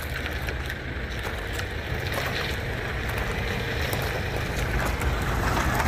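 A car engine running at low speed, a steady low rumble that grows gradually louder.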